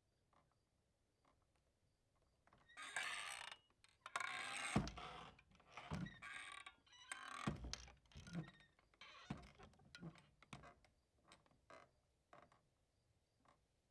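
Saloon-style swinging doors pushed open with a loud, scratchy hinge creak. The doors then flap back and forth, knocking several times, and the knocks grow smaller as the doors settle.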